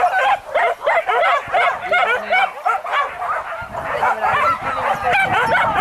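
A pack of boar-hunting dogs yelping and barking excitedly, many short high calls overlapping one another with no break.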